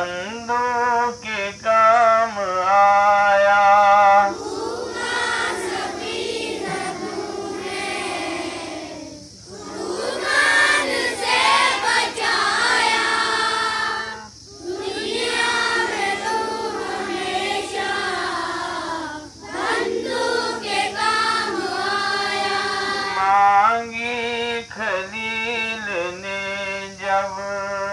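A group of schoolchildren singing a devotional prayer song together in Hindustani. The song goes in phrases of a few seconds with short breaks between them.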